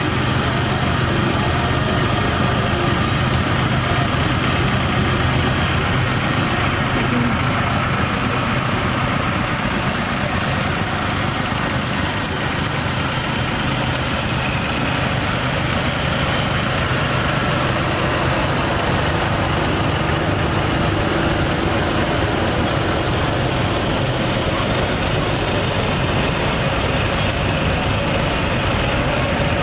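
Tractor engines running steadily as a procession of tractors drives slowly past, an even, continuous engine drone with no clear changes.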